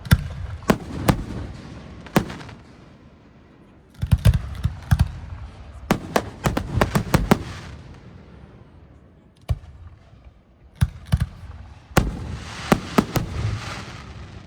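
Fireworks display: aerial shells bursting in three clusters of rapid sharp bangs, with quieter lulls between and a crackling spray of small reports in the last cluster.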